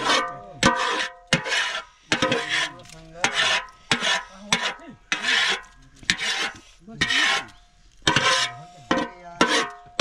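A metal pan being scraped out as cooked pork is emptied into a pot: repeated rasping scrapes about once a second, the pan ringing with each stroke.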